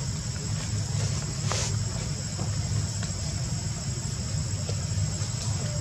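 Steady high-pitched drone of insects in the forest, over a constant low rumble, with a few faint clicks.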